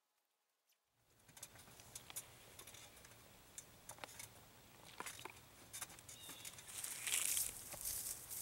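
Silence for about a second, then quiet outdoor sound with scattered light clicks, giving way near the end to footsteps crunching through dry fallen leaves on grass, growing louder as they come closer.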